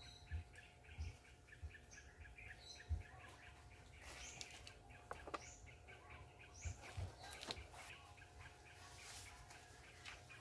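Soft scrapes and a few light taps of a hand trowel scooping potting soil, under a faint, rapid, even chirping and a thin steady hum.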